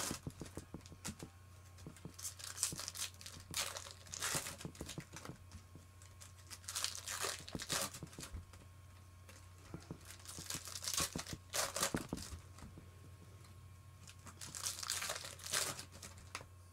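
Foil trading-card pack wrappers crinkling and tearing, with cards being handled, in short irregular bursts every few seconds over a low steady hum.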